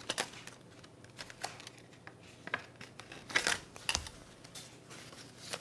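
Paper dollar bills rustling and flicking as they are taken from a cash-binder envelope and leafed through by hand, in short scattered rustles, a few louder ones a little past the middle.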